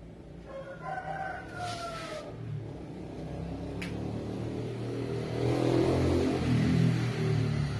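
A rooster crows once near the start, a call of about two seconds that falls slightly in pitch. Then a vehicle engine's low rumble grows steadily louder and is loudest near the end, as if the vehicle is passing close by.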